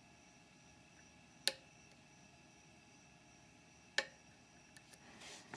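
Two sharp metallic clicks about two and a half seconds apart, then a few faint ticks near the end: a short-hook dimple pick working the pins inside a Mauer NW4 dimple cylinder lock.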